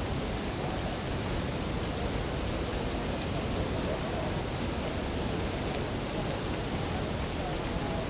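Tegenungan waterfall: steady rushing of falling water, an even, unbroken noise.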